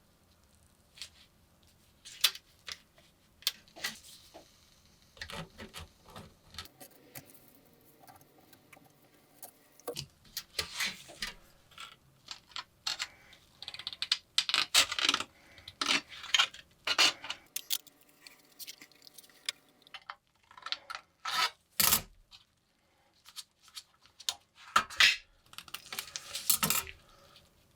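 Small metal lighter parts being handled on a workbench: irregular light clicks, taps and short scrapes, sparse at first and busier in the second half.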